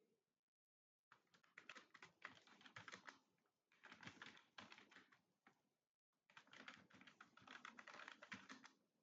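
Faint, rapid typing on a computer keyboard, keystrokes clattering in quick runs broken by brief pauses.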